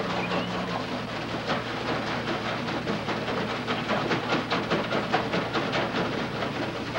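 Rapid, irregular rattling and crinkling of a plastic container gripped in a trembling hand, several clicks a second without pause. The shaking is the hand tremor of Parkinson's disease.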